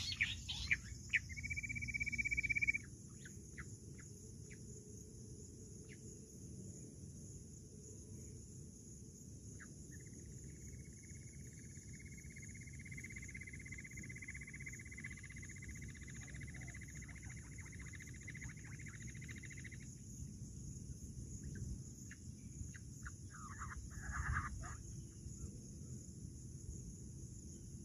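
Steady high chirring of insects, with a long, slightly rising trill through the middle lasting about ten seconds and a short call about three-quarters of the way in. It opens with a few sharp clicks and a loud buzz lasting about a second and a half.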